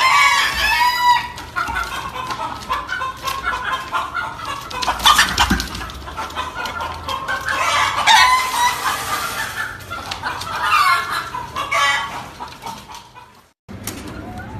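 Domestic chickens calling, several voices overlapping, loudest around five and eight seconds in. The sound fades out and breaks off near the end, then other birds' calls begin.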